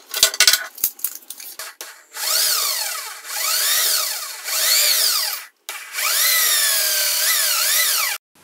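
Corded electric drill pre-drilling pilot holes into the edge of a plywood panel, its motor whine rising and falling in pitch over several stretches with a brief stop just past halfway. Light clicks and knocks come before the drill starts, about two seconds in.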